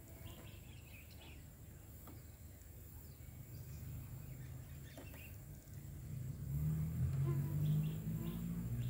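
Outdoor background noise with faint, scattered bird chirps. About six seconds in, a louder low hum rises and holds.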